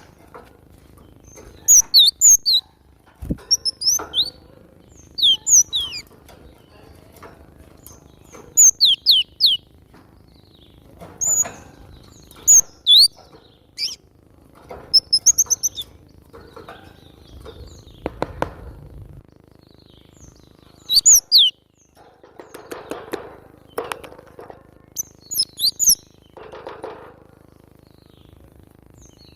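Cinereous tit (glatik batu) singing, in short bursts of sharp, high notes repeated every second or two, one of them a quick rattling run, with softer lower sounds between the phrases.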